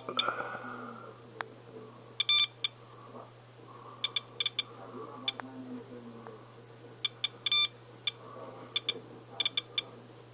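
SOEKS handheld radiation detector beeping: short electronic beeps at irregular moments, some single and some in quick clusters of two to four, each beep marking a detected count. It is reading about 1.04–1.07 µSv/h from rain fallout, around eight times normal background, so it beeps often.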